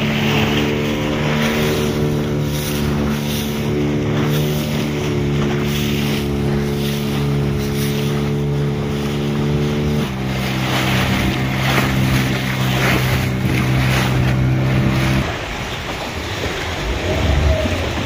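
Motorboat engine running at a steady speed, stepping down to a lower, slower note about ten seconds in, then its hum stops about five seconds later, leaving wind and water noise.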